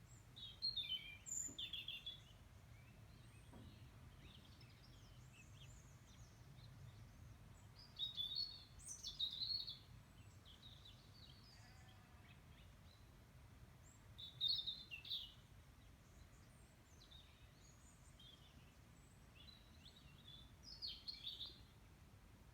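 A songbird singing short, quick phrases four times, spaced several seconds apart, faint over a steady low background rumble.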